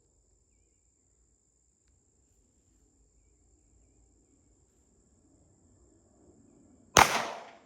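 A single gunshot about seven seconds in: one sharp, loud crack that rings off over about half a second. Before it there is only a faint, steady high tone.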